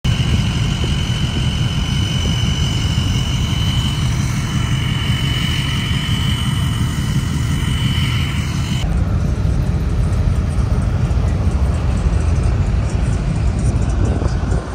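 Loud, steady low rumble of pickup trucks running, with a steady high whine over the first part. The upper sound changes abruptly about nine seconds in while the low rumble carries on.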